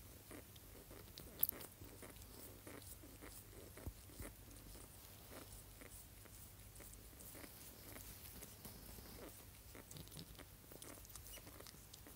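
Faint, irregular wet clicks of a cat licking and grooming a pet rat's head, a few clicks louder than the rest, over a low steady hum.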